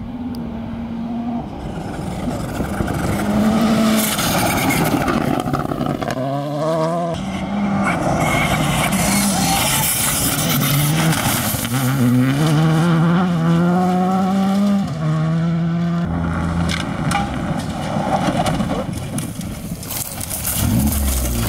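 Rally cars accelerating flat out along a gravel stage, their engines revving hard, with the pitch climbing through each gear and dropping sharply at every upshift, several times over, over the noise of tyres on loose gravel.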